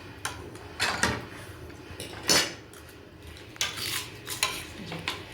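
Cutlery clinking against a plate during eating, a handful of separate clinks with the loudest about two seconds in.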